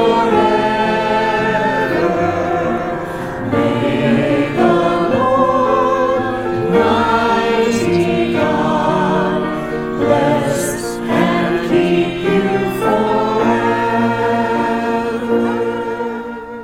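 Choir singing a sacred piece in sustained chords, fading out at the end.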